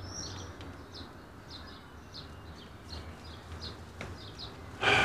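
Small birds chirping softly in the background: short, high chirps in quick succession. A louder sound breaks in near the end.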